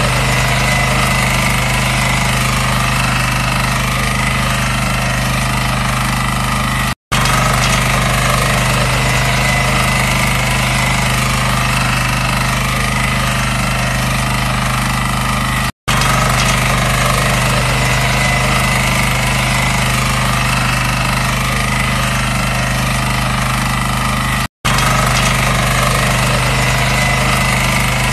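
Walk-behind power tiller's engine running steadily under load as its front cutter mows through dry grass. The sound cuts out for an instant three times.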